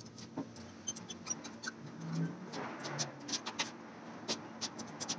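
Light, irregular metallic clicks and ticks as a HeliCoil thread insert is wound by hand into a stripped bolt hole in the engine block, repairing the damaged threads.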